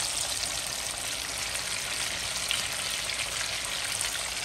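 Flour-coated chicken breast strips deep-frying in a pot of hot oil, with a steady sizzle.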